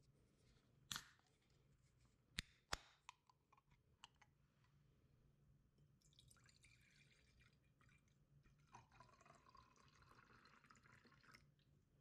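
Aluminium drink can opened by its pull tab, a few sharp clicks and snaps, the loudest about a second in and two more close together between two and three seconds in. Then iced tea poured from the can into a glass mug, a steady splashing pour of about five seconds that stops near the end.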